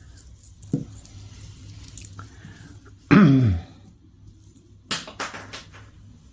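Small clicks and taps of a necklace being handled and straightened on a surface, the sharpest tap a little before five seconds in. About three seconds in there is a brief murmured voice sound with a falling pitch.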